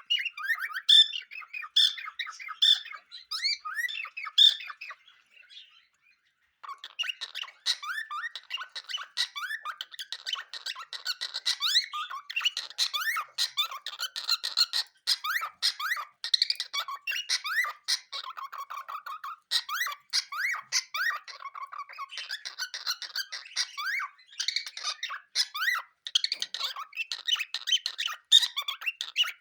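Cockatiels chirping and chattering, a dense run of quick rising chirps with a short pause about five seconds in.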